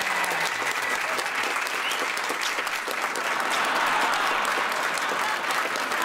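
An audience applauding: a sustained round of many hands clapping at a steady level.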